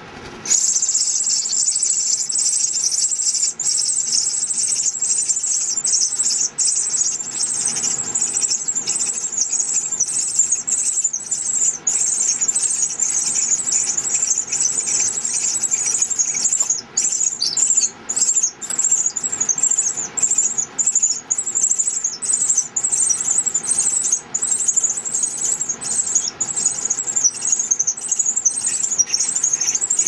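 Three pearly-eyed thrasher nestlings begging for food from a parent with shrill, high-pitched squealing calls. The calls start abruptly about half a second in and go on almost without pause, becoming more broken in the second half.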